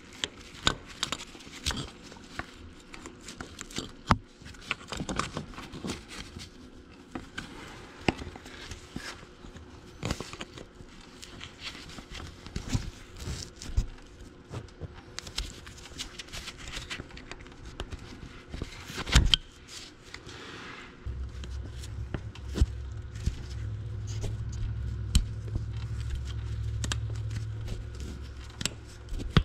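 Small metal clicks and scrapes of pliers working a retaining pin loose on a tractor's brake linkage, with one louder click about two-thirds of the way in. A steady low hum sets in soon after and runs on.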